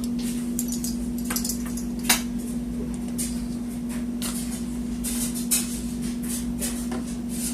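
A soft cleaning cloth wiped over a CPU heat sink to clear off lint: a run of short, irregular scrubbing swishes, with a sharper click about two seconds in, over a steady low hum.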